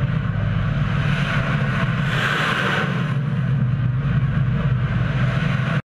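Ship-launched missile's rocket motor roaring at lift-off, a loud steady rushing rumble that swells about two seconds in and cuts off suddenly near the end.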